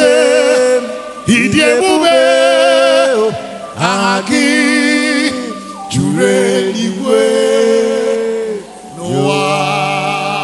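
A singing voice holding long notes with vibrato, in a series of phrases that each slide up into the note at the start, with little or no instrumental backing.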